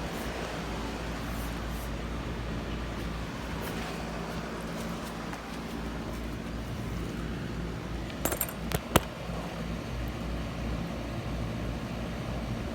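Outdoor unit of a 5-ton Concorde heat pump running in cool mode: a steady hum of compressor and condenser fan. A few sharp metallic clicks come about eight seconds in, the last the loudest.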